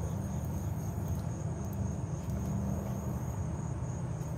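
Insects chirring in a thin, steady high drone over a steady low rumble.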